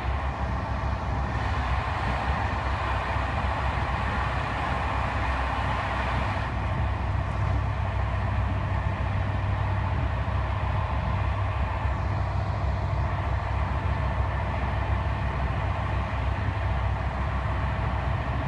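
Steady running noise of a passenger train heard from inside the coach: the wheels rolling on the rails with a low rumble that holds even throughout.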